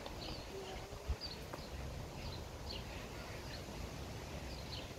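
Small birds chirping: short, high, falling calls at about two a second, over a steady low rumble.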